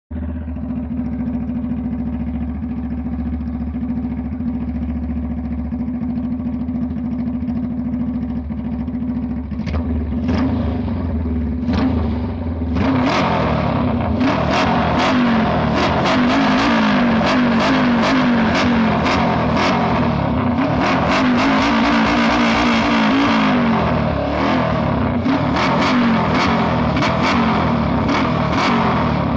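Motorcycle engine idling steadily for about nine seconds, then blipped a few times and revved repeatedly, the pitch rising and falling over and over through the second half.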